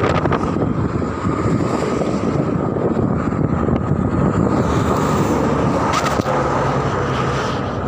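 Steady, loud noise of heavy road traffic running past on a highway, with wind on the microphone.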